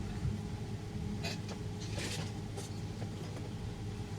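Steady low electrical hum from the opened, switched-on speaker amplifier, with a few light clicks and rustles of handling.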